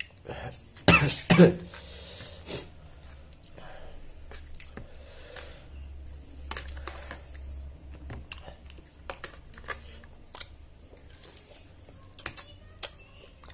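A person eating catfish and rice with a metal spoon: chewing, with short clicks and scrapes of the spoon on a plastic plate. Two loud knocks come about a second in.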